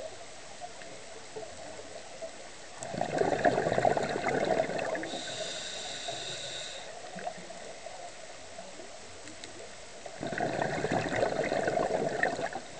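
Scuba diver breathing through a regulator underwater: two long exhalations of bubbles, about three seconds in and again about ten seconds in, with a whistling hiss of an inhalation through the regulator between them.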